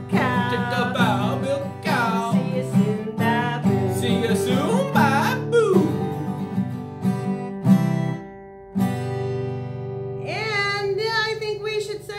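A woman singing a children's goodbye song while strumming an acoustic guitar. A little past the middle the singing drops out for a few seconds while the guitar chords ring on, and then her voice comes back near the end.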